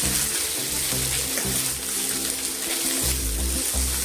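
Background music over the steady sizzle of shallots, onion and tomato frying in oil in a pan as they are stirred with a spatula.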